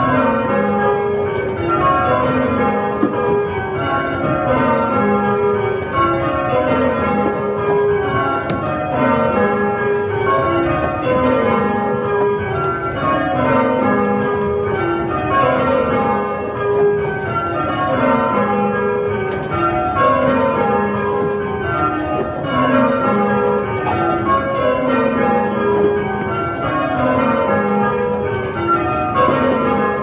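A Gillett and Johnson ring of eight church bells rung full circle in rounds: the bells strike one after another from the highest to the lowest, a falling scale that repeats over and over at an even pace.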